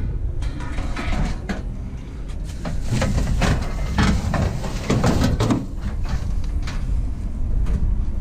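Scrap metal being pulled apart and handled: irregular knocks and clanks over a steady low rumble.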